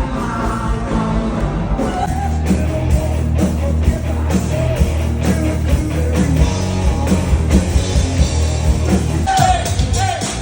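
Rock music with a steady drum beat, bass and singing.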